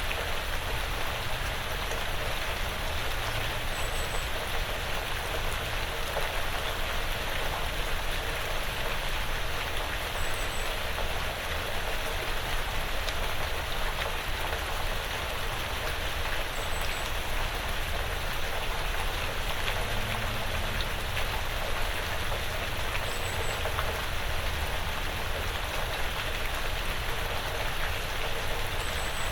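Steady, quiet rain pattering on a porch roof and the surrounding woods.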